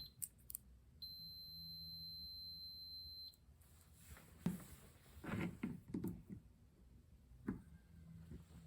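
Multimeter continuity beep: one steady high tone lasting about two seconds, starting about a second in. It sounds while the test probes find a connection between a cable wire and a plug connector. Faint clicks and taps of the probes being handled follow.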